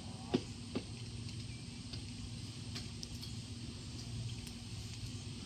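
Gasoline chainsaw idling steadily between cuts, not cutting into wood. Two faint knocks in the first second.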